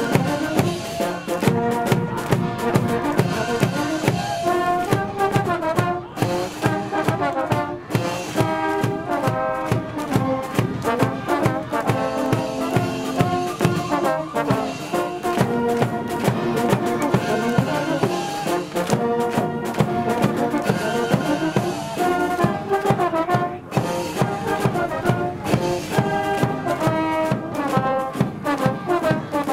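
University cheering-squad brass band playing a cheer tune, with trumpets and trombones carrying the melody over a steady, driving drum beat.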